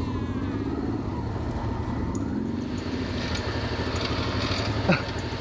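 Off-road trail motorcycle engine running at low speed on a rough dirt track. A rattling wash of noise grows about halfway through, and there is a brief louder sound near the end.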